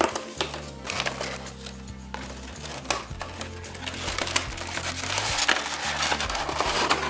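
A cardboard blind box being opened by hand: a run of clicks and scrapes as the flaps are worked open, with denser rustling of cardboard and plastic packaging in the last few seconds, over soft background music.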